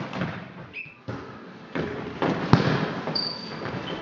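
Volleyball rally in a sports hall: the ball is struck by hands several times in sharp smacks, the loudest about two and a half seconds in, ringing in the hall. Shoes give a few short high squeaks on the court floor.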